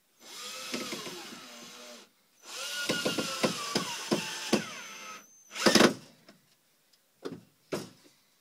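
Handheld power drill driving a screw into the wooden birdhouse in two runs, about two and three seconds long, its motor whine sagging in pitch as the screw bites. A loud knock follows a little after halfway, then two lighter clicks near the end.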